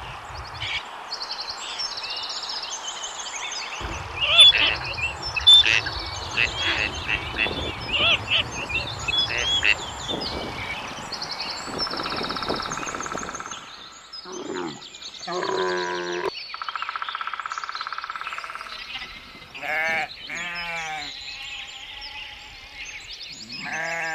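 Many short, high peeping calls through the first half, then sheep bleating: several long, wavering bleats of about a second each from around the middle on.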